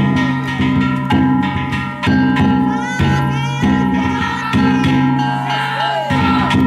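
Danjiri festival music: a taiko drum and hand-held kane gongs beaten in a steady rhythm, the gongs leaving a ringing metallic tone between strokes. A brief high-pitched call rises over it about three seconds in.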